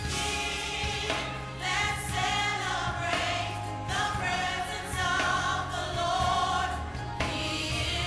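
Gospel music with a choir singing over steady bass notes.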